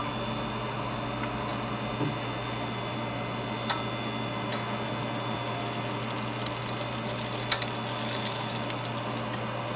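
Electronic drone soundtrack: a steady low electrical hum under a faint high whine, with a handful of sharp clicks and crackles scattered through it.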